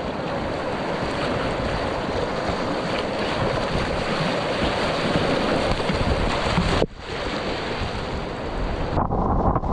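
Whitewater of a river rapid rushing and splashing around a kayak, with wind noise on the camera microphone. It breaks off briefly about seven seconds in and sounds duller near the end.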